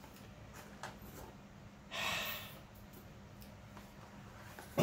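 Quiet handling of a small cardboard ammunition box, with a few faint taps and one short breathy rush of noise about two seconds in. Right at the end a voice starts a falling 'hmm'.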